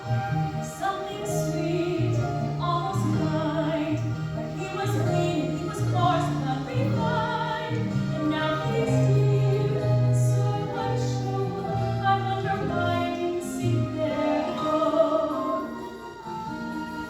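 High school choir singing a medley with instrumental accompaniment.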